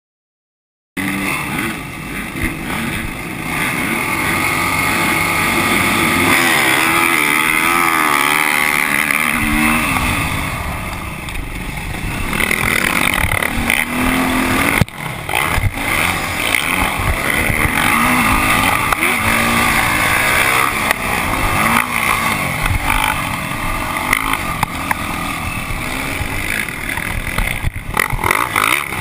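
Motocross dirt bike engine revving up and down hard while racing, heard from a camera mounted on the bike's handlebars, starting about a second in. A sharp knock about halfway through.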